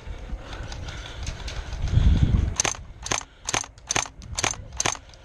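Airsoft gun firing single shots at an even pace, about two a second, starting about two and a half seconds in. Just before the shots, a dull low rumble that is the loudest sound.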